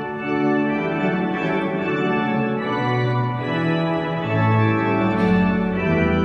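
Intro music of sustained keyboard chords that change every second or so over a moving bass line.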